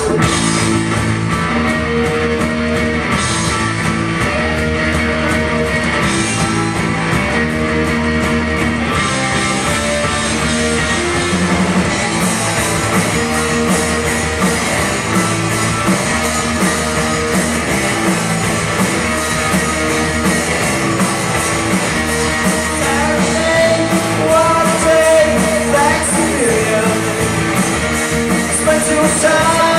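Rock band playing live, electric guitar and drums kicking in together at full volume at the start of a song, with steady hi-hat ticks over a driving beat.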